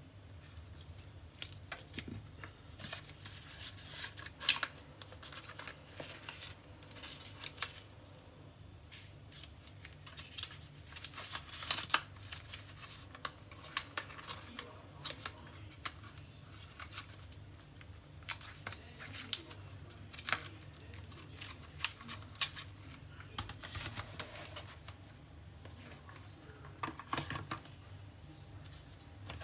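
Hands unpacking a cardboard gift box: scattered clicks, taps and rustles as a coiled cable, a fabric watch strap and inner trays are handled, the loudest knocks about four and twelve seconds in. A faint steady low hum runs underneath.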